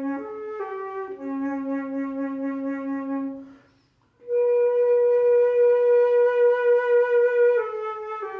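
A Yamaha wind instrument, one under repair, playing a slow melody of long held notes. It stops for a breath about three and a half seconds in, then holds a long higher note that steps down near the end.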